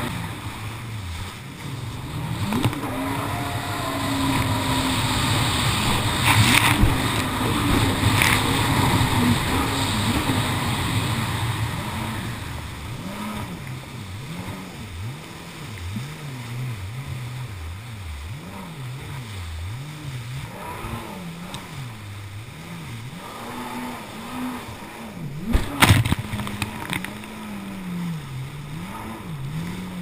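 Kawasaki Jet Ski running hard with the throttle worked up and down, its engine pitch rising and falling over and over. Water rushes and spray hits the hull, loudest through the first half, with sharp slaps a few seconds in and a louder thump near the end.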